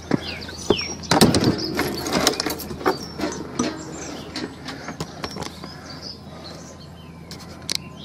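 Footsteps on concrete steps and the clatter of a door being opened, loudest about a second in. Small birds chirp throughout.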